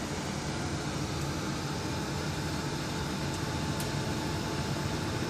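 Steady background hum and hiss with a faint steady tone, unchanging throughout, with a couple of tiny clicks.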